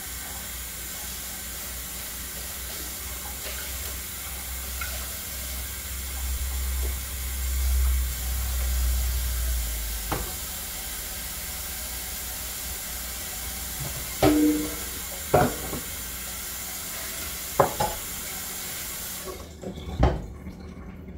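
Kitchen tap running steadily into the sink, shut off near the end, with a few sharp knocks of dishes and utensils.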